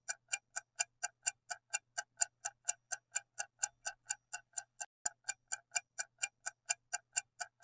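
Clock-tick sound effect of a quiz countdown timer: rapid, even ticks, about four to five a second, while the answer time runs.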